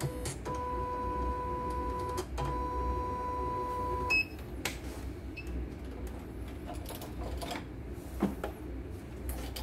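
A CNY computerized embroidery machine sounding a steady high electronic tone in two long stretches with a brief break between them. About four seconds in it stops with a click and a very short higher beep, followed by a few light clicks over a low hum.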